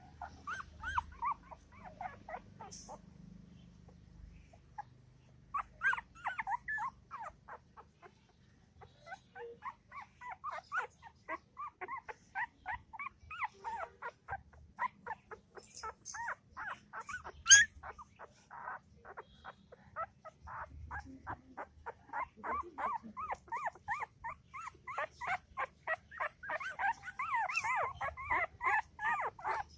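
Newborn puppies crying: a long run of short, high-pitched whimpers and squeaks, several pups overlapping and crying more densely near the end. A single sharp click cuts in about halfway through.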